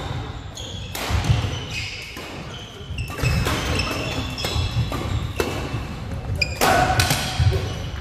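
Doubles badminton rally on a wooden gym floor: a string of sharp racket strikes on the shuttlecock at uneven intervals, with shoes squeaking and feet thudding as the players move, in a reverberant hall.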